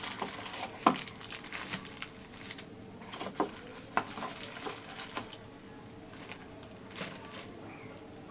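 Packaging being handled during an unboxing: crinkling and rustling with scattered sharp clicks and taps, the loudest a click about a second in.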